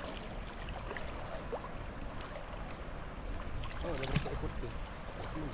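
Steady rushing noise of moving river water, with a brief faint voice about four seconds in.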